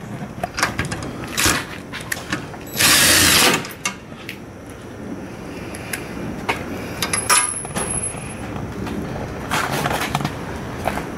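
A cordless DeWalt drill-driver runs in one short burst about three seconds in, driving in a bolt that holds a metal stop-arm bracket to the side of a school bus. Scattered clicks and knocks of metal parts being handled come before and after it.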